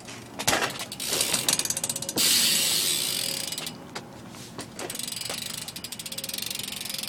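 A Diamondback Joker BMX's rear hub ratcheting as the back wheel spins freely: a rapid run of pawl clicks, pretty loud. It comes in bursts, loudest a little after two seconds in and steady again from about five seconds, with a sharp knock about half a second in.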